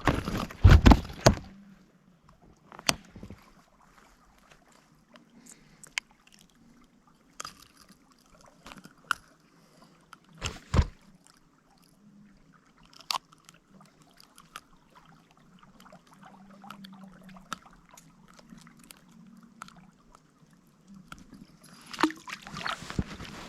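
Water sloshing and splashing, loudest in the first second and a half and again near the end, with scattered sharp clicks and knocks between.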